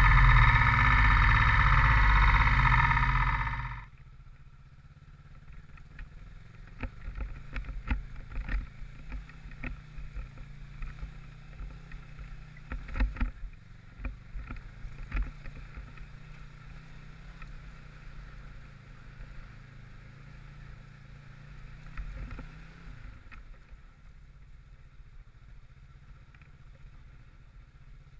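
Music fades out about four seconds in. Then a Kawasaki Versys 650's parallel-twin engine runs steadily, with many sharp knocks and rattles. The engine note drops away about three quarters of the way through.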